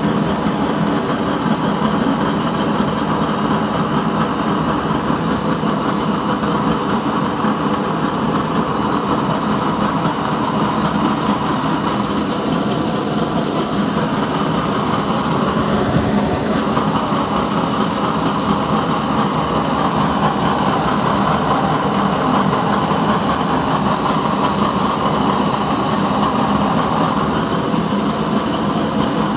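Lit burners of a double-burner oil stove burning with a steady rushing noise that holds even throughout.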